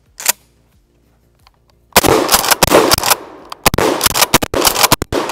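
Rapid gunfire: after a single sharp report near the start, a string of shots begins about two seconds in, several a second, each with a short echo.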